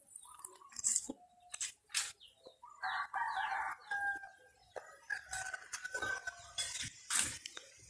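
A rooster crowing, one long call starting about three seconds in and lasting a few seconds, over scattered close rustles and clicks.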